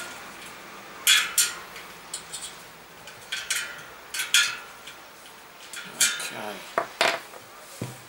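Sharp metallic clicks and clinks, about a dozen in irregular pairs and clusters. They come from a spoke key turning the nipples on a DT Swiss wheel's spokes while the tension is trued in the stand.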